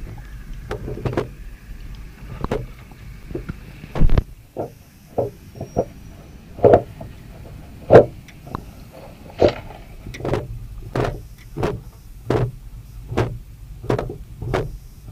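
Underwater hydrophone recording during a descent: a run of short knocks, irregular at first and then about one every 0.7 s, over a low steady hum.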